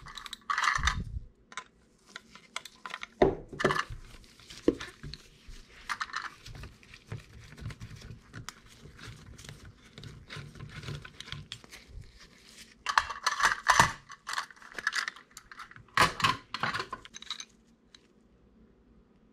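Scattered metallic clinks and short rattles of hand tools and bike parts handled on a workbench: a T-handle Allen key drawn from its stand and worked in the crank-arm bolt of a mid-drive bottom bracket.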